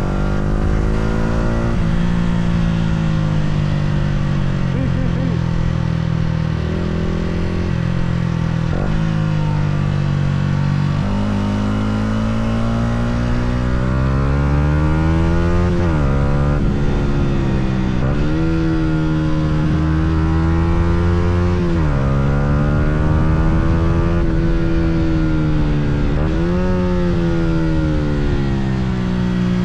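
Yamaha R125's single-cylinder four-stroke engine running under way. Its note climbs slowly, and in the second half it dips sharply and climbs again several times, as at gear changes.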